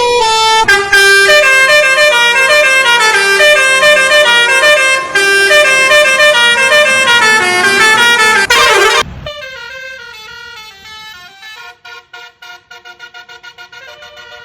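Odong-odong's six-trumpet telolet horn playing a loud tune of stepped notes for about nine seconds, then cutting off suddenly. After that a quieter run of quick, repeated notes follows.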